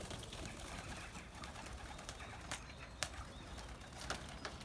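Young racing pigeons around their loft, heard faintly with soft cooing and wing flutters, and a few sharp clicks about midway and near the end.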